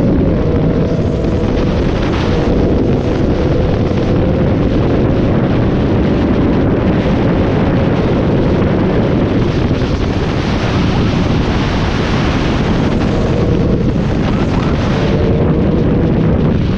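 Wind buffeting the microphone on a moving Yamaha MT-09 motorcycle, with its three-cylinder engine running steadily underneath.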